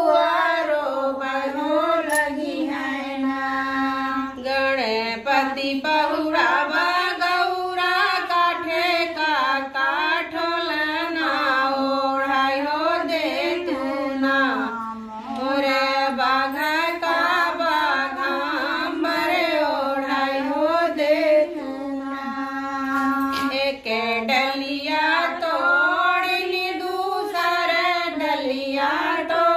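Women singing a kajari, a folk song to Gaura Mai (the goddess Gauri), in long held, wavering notes that run on without a break.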